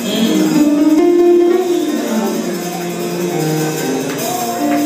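Live worship music in a church: held melody notes that glide between pitches over instrumental accompaniment.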